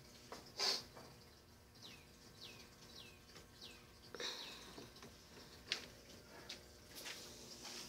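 A few sharp clicks and knocks, with a run of about five short, falling chirps, like a small bird's, between them.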